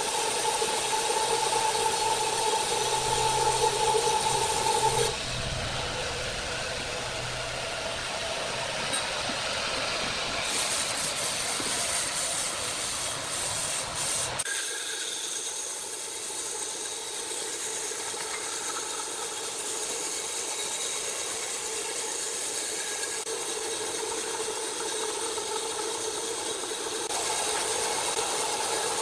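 Sawmill machinery running steadily, a mechanical hum with some rattle. The sound changes abruptly several times, about five, ten and fifteen seconds in.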